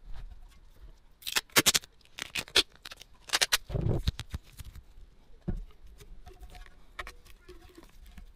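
Hands handling small parts and tape on a rusty metal fuel tank: two bursts of sharp clicks and scrapes, then a single dull knock past the middle, then lighter scattered clicks.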